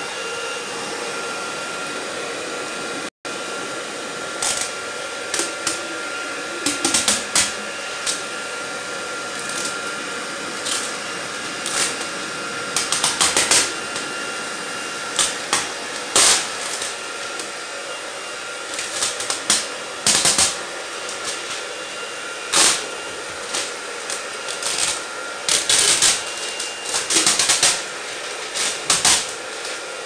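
Hair dryer blowing steadily with a faint whine, while heat-softened window tint film is peeled off car glass, crackling and ticking in short irregular spells from about four seconds in.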